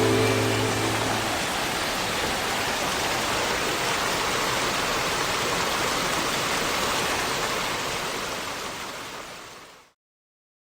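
Steady rushing of flowing water, an even hiss without rhythm, fading out over the last couple of seconds and ending abruptly. A held music chord dies away in the first second.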